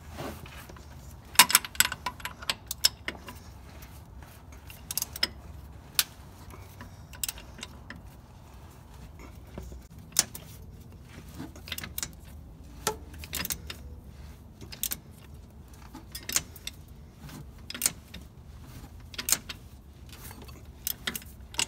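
Irregular metallic clicks and clinks from a ratchet and socket on the crankshaft pulley bolt and a screwdriver against metal, as the engine is turned over by hand and the stretch-fit accessory belt is pried off the vacuum pump pulley.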